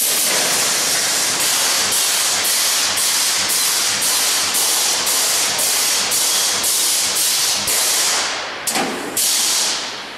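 Automatic wire mesh welding machine cycling: a loud hiss that pulses in an even rhythm about two and a half times a second as the welding heads work along the mesh. It stops about eight and a half seconds in, then gives one more short burst.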